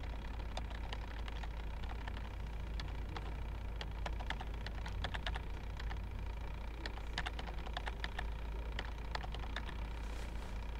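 Typing on a computer keyboard: irregular runs of keystroke clicks, thicker in the middle and second half, over a steady low hum.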